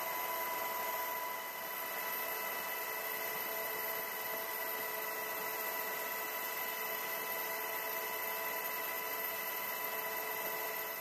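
Helicopter cabin noise with the door open: a steady hiss of rushing air and engine noise with a constant high whine running through it.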